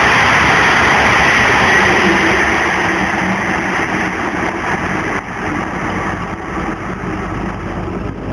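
E5 series Shinkansen passing through the station at speed: a loud rushing of wheels and air that fades steadily as the train recedes, dropping away about five seconds in.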